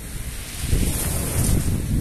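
Sea surf washing in at the water's edge, with wind buffeting the microphone; the low rumble swells a little under a second in.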